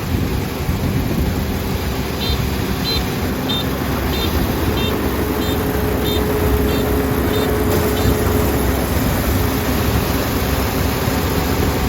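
Kubota ER470 combine harvester running steadily. A run of short, high beeps sounds about every two-thirds of a second, from about two seconds in until about eight seconds in.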